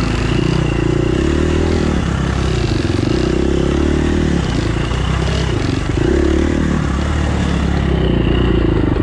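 Dirt bike engine heard up close from on board, rising and falling in pitch as the throttle is opened and closed several times while riding, with rattling from the bike.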